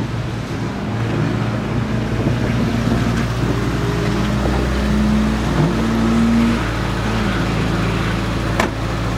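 Cars driving past on a wet track, led by a red Renault Clio RS hatchback. The engines hold fairly steady revs, with a held note and a brief rise in pitch midway, and there is one short sharp click near the end.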